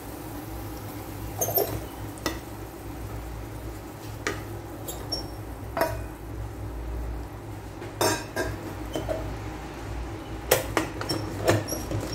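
Stainless steel bowl and wooden spatula knocking and scraping against a rice cooker's nonstick inner pot as chicken liver in soy sauce is tipped in and stirred. Sharp clinks come every second or two, the loudest near the end, over a steady low hum.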